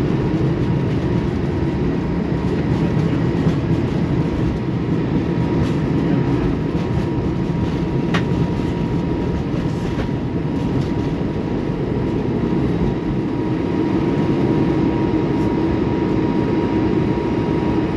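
Cabin noise on an Airbus A220-300's takeoff roll: its Pratt & Whitney PW1500G geared turbofans at takeoff thrust, heard as a deep, steady rush with a faint steady whine on top, and a few light clicks about eight and ten seconds in.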